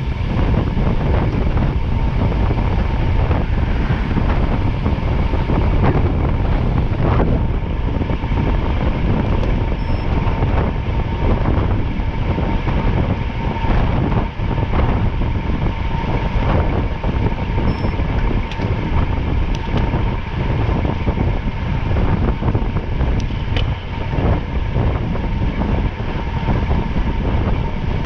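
A vehicle moving at speed, its steady rumble mixed with heavy wind buffeting the microphone.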